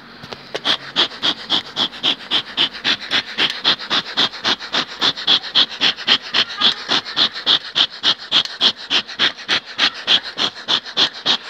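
Hand-pumped Varrokom smoke gun puffing miticide smoke into a beehive to treat it for varroa mites: a steady run of short, breathy puffs, about three a second, that stops near the end.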